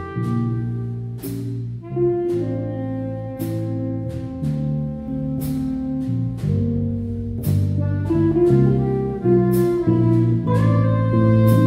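Jazz combo playing a slow ballad: soprano saxophone holding long melody notes over electric guitars, electric bass and drums, with a drum-kit stroke about every two seconds.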